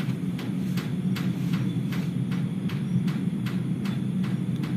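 A steady, low droning hum of unknown origin, sounding like low-flying aircraft overhead, with water dripping onto a roof below in sharp, even ticks about three times a second.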